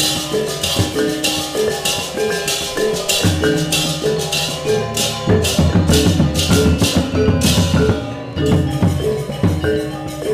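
Balinese gong gamelan ensemble playing a tabuh petegak: bronze metallophones and kettle gongs with kendang drums. A crisp metallic clash keeps a steady beat about three times a second and drops out about eight seconds in.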